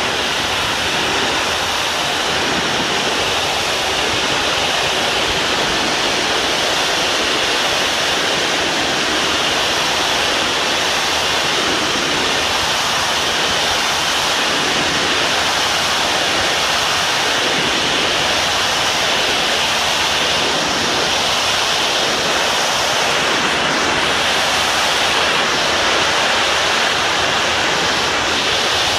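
Pressure washer wand's high-pressure water jet spraying steadily against a stone-aggregate building facade, a continuous loud hiss as it blasts grime off the wall.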